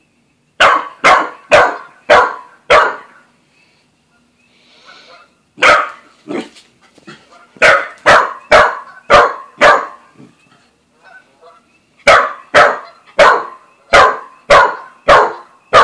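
Australian shepherd–corgi mix dog barking at a cat in sharp, loud bursts of several barks at about two a second. There are short pauses between the bursts, around 3 to 5 seconds in and again around 10 to 12 seconds in.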